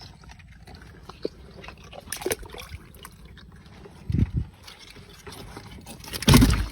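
Water sloshing and dribbling as a fish trap and its catch are handled, with scattered small knocks and a louder splash or knock near the end.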